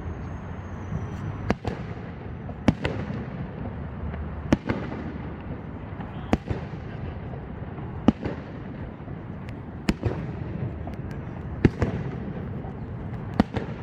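Fireworks display: a sharp bang about every two seconds, eight in all, over a steady low rumble.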